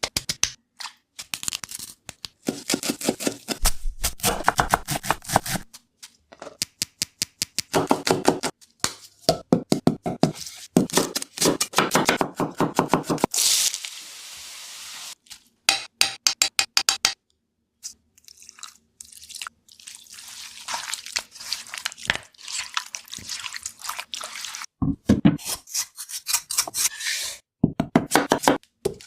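Kitchen food-preparation sounds in short edited snippets: clicks, knocks and water-like splashing, each cut off abruptly by stretches of silence.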